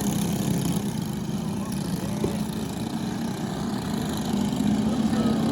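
Briggs & Stratton 206 single-cylinder four-stroke kart engine running steadily, a little louder near the end.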